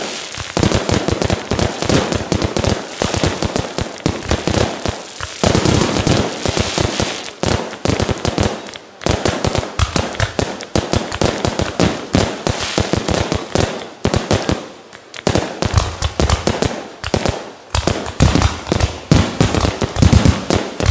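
Amateur fireworks display: aerial shells and cakes bursting in a dense, rapid string of crackling pops and bangs, with short lulls about 9 and 15 seconds in.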